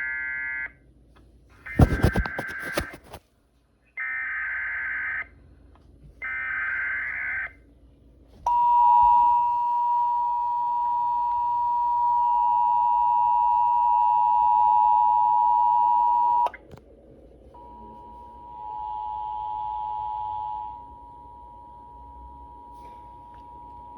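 Emergency alert signalling: a few short bursts of digital header tones, then the two-tone attention signal (about 853 and 960 Hz together) held steady for about eight seconds, which announces the severe thunderstorm warning. It cuts off and is followed by a fainter single steady tone.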